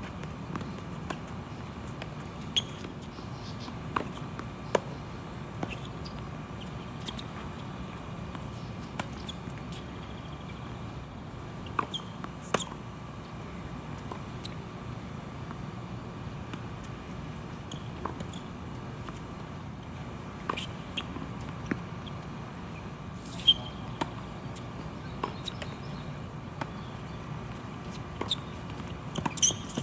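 Tennis ball being struck and bouncing on a hard court: scattered sharp pops at irregular intervals over steady background noise.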